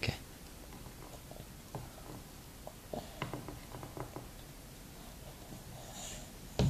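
Chopsticks clicking lightly and irregularly against a small ceramic bowl as food is picked out, with a cluster of small clicks about three seconds in and a sharper click near the end.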